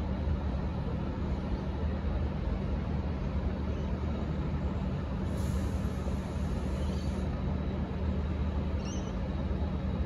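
Diesel locomotive engine running steadily at idle, a low even drone, with a short hiss of air about five seconds in.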